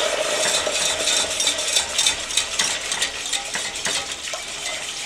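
Wire whisk clicking rapidly against the sides of a stainless steel saucepan while cream is poured into a hot roux and whisked in for a cream gravy.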